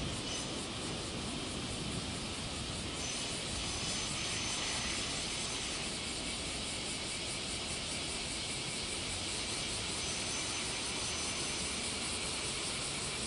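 Steady, distant rumble and hiss of two trains pulling away: an HD300 hybrid shunting locomotive hauling container wagons, and a 115-series electric train on the next track.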